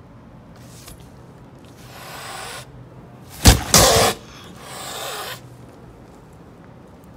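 A mother cat guarding her newborn kittens hisses, gives a sudden loud explosive outburst, then hisses again: a defensive warning to keep anyone away from the kittens.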